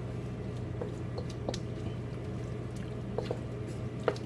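Quiet kitchen room tone: a steady low hum with a few light clicks and taps scattered through it.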